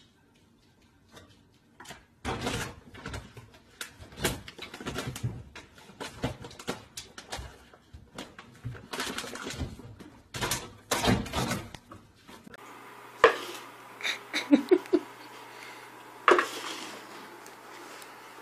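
Cat clambering on a microwave and rummaging in a kitchen cabinet, giving a run of irregular knocks and clatters. About two thirds of the way in, the sound changes to a different room with a steady low hum and a few sharp knocks.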